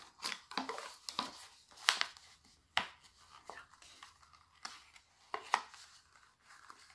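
Thin clear plastic cup crackling and clicking in the hands as sock loops are worked around its cut strips: irregular sharp clicks, a few of them louder.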